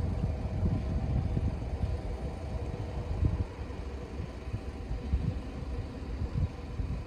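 Low engine rumble with a faint steady hum that fades out about halfway through.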